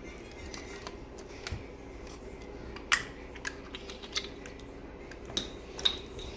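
Scattered light clicks and taps, a few sharper ones about halfway through and near the end, over a steady low hum.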